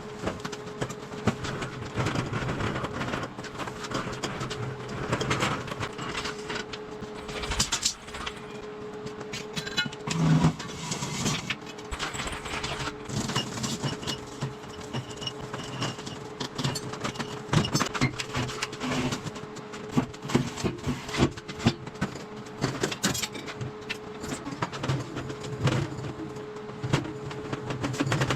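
Irregular clattering and knocking of objects being handled and moved about, over a steady hum.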